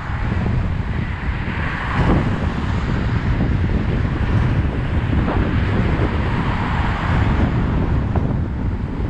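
Wind buffeting the microphone of a moving bicycle's camera: a steady, rumbling rush of noise.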